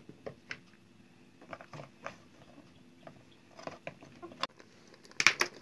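Whole green pickling peppers being packed by hand into a large plastic jar: scattered light crunches, squeaks and knocks of the peppers against each other and the plastic, with a louder cluster near the end.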